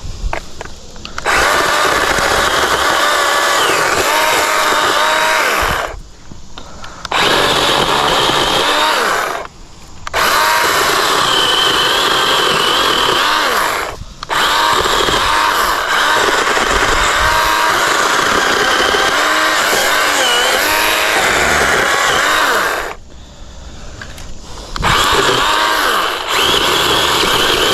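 Craftsman V20 20-volt battery chainsaw with a 12-inch bar running in bursts as it cuts brush and tree limbs, its electric motor and chain whine wavering in pitch as the chain bites. Five runs with short pauses between, the longest about nine seconds.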